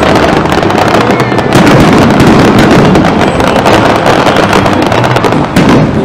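Fireworks display: loud, rapid crackling and popping of bursting shells, thinning out near the end.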